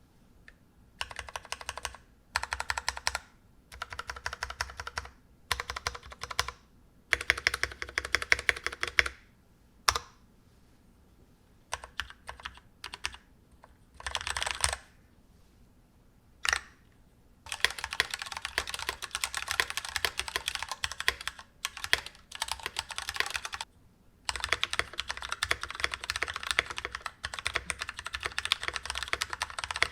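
Typing on an NK65 mechanical keyboard with Cherry MX Red linear switches: short bursts of rapid keystrokes with pauses in between, then long unbroken runs of fast typing over the second half.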